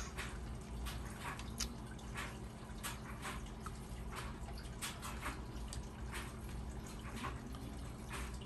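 Faint, irregular dripping and trickling of water, one or two drips a second, over a steady low hum: an aquarium filter running.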